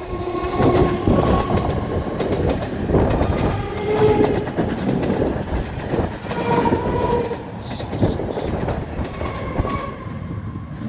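A passing train, its wheels clattering steadily over the rail joints, with brief ringing whines now and then.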